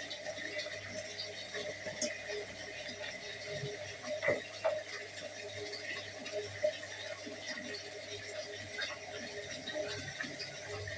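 Dishes and utensils being handled at a kitchen sink: small scattered clinks and taps, with two louder knocks about four seconds in, over a steady low hum.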